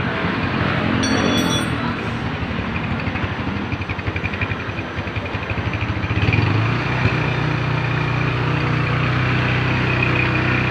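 Kawasaki Barako 175's single-cylinder four-stroke engine running steadily after a top overhaul with new piston rings and lapped valves, without valve clatter. About six seconds in it picks up speed and holds the higher revs.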